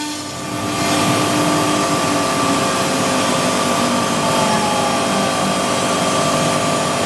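CNC milling router cutting cement-bonded particle board: a steady whine over a loud rushing noise. It dips briefly in loudness at the start, then holds steady.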